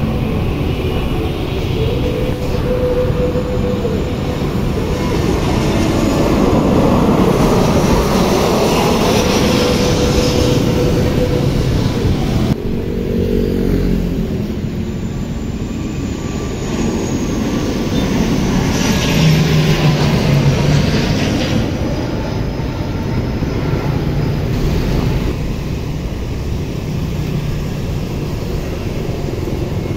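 Airliners on final approach passing low overhead, with engine rumble over street traffic. The first plane's noise swells to a peak and is cut off abruptly about a third of the way in. Then an ATR 72-500 turboprop's drone builds to a peak past the middle, and the next approach starts building near the end.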